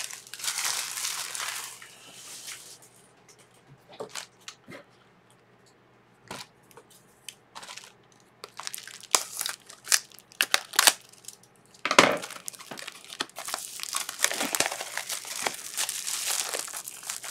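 Clear plastic wrapping being crinkled and crumpled by hand. Crinkling at the start, then a quieter stretch of scattered clicks and taps, then steady crumpling through the last five seconds.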